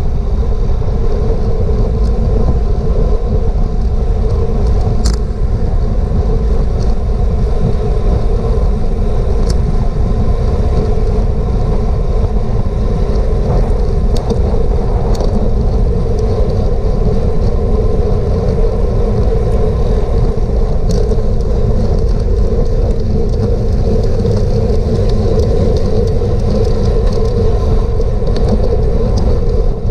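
Wind rushing over a bike-mounted GoPro's microphone while riding at race speed: a loud, steady rumble, with a few faint clicks here and there.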